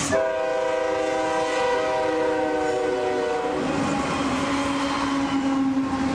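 Sound-equipped model diesel locomotive blowing its multi-note horn for about three and a half seconds as it runs toward the camera, then a single lower steady tone takes over, over the steady running noise of the train on the track as it passes close.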